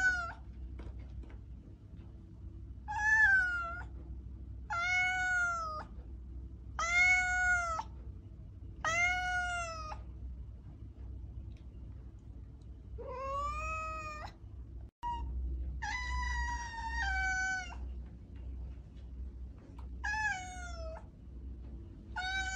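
A domestic cat meowing again and again, about nine meows a couple of seconds apart, each one arching or falling in pitch; the meow just past the middle is longer and breaks into two parts. A low steady hum runs underneath, cut by a very brief dropout about two-thirds of the way through.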